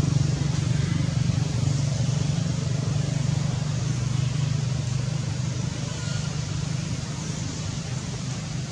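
A motor vehicle's engine running nearby: a steady low hum that slowly fades.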